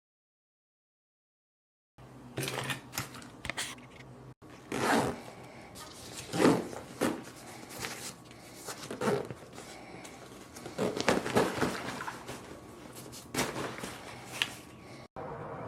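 Irregular rustling, with sharp knocks and clicks, of things being handled and put away, starting about two seconds in after a short silence.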